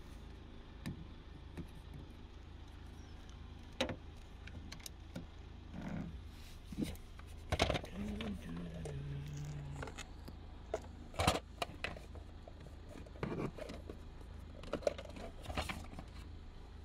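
Hands rummaging among small plastic and metal parts: scattered clicks, taps and light rattles, with a couple of sharper clicks about seven and a half and eleven seconds in.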